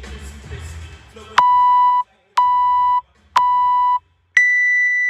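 Workout interval timer counting down: three short beeps at the same pitch a second apart, then a longer, higher beep that signals the start.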